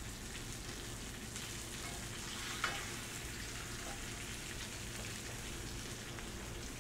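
Fish fillets and citrus slices sizzling steadily in a hot frying pan, with one light tap about two and a half seconds in.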